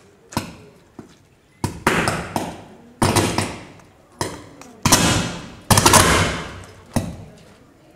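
Electrical arcing at a burning pole-mounted distribution transformer: a series of about nine sharp cracks, each followed by a hissing crackle that dies away within a second. The loudest come about five to six seconds in.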